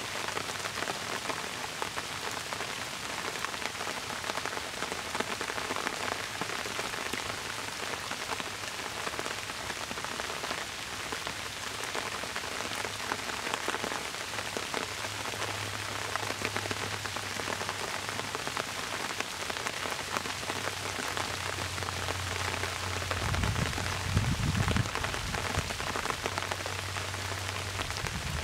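Steady rain falling on bamboo leaves and the statue, a dense hiss full of small drop ticks. A faint low hum joins about halfway through, and a brief low rumble comes a few seconds before the end.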